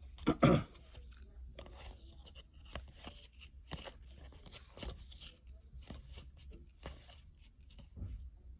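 A baseball card pack wrapper being torn open and the cards handled: a string of faint, scattered crinkles, rustles and clicks, louder in the first half-second.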